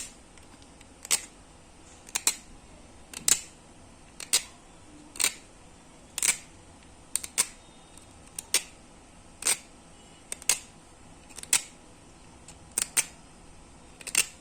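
A phone's USB charging connector rubbed on sandpaper to file it down so it fits: short scratching strokes about once a second, some in quick pairs.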